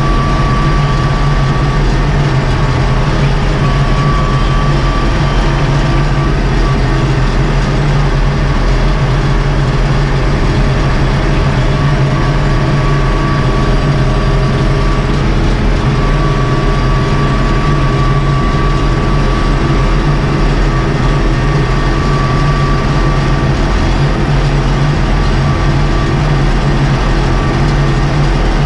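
Ursus 1224 tractor's six-cylinder diesel engine running steadily under way, heard from inside the cab, with a thin high whine that comes and goes.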